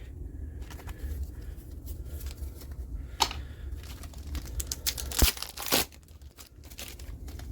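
Trading-card booster pack wrapper being torn open and crinkled by hand, a run of crackles and rustles with the loudest tear about five seconds in.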